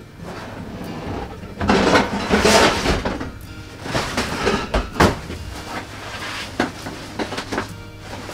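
Plastic storage tubs and their contents being shifted and rummaged through: scraping and rustling, strongest a couple of seconds in, then a few sharp knocks of plastic lids and boxes. Quiet background music runs underneath.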